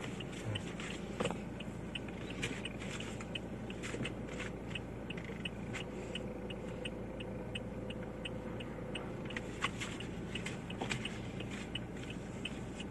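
A car's turn-signal indicator ticking steadily, about two clicks a second, over the low hum of a slow-moving car's cabin.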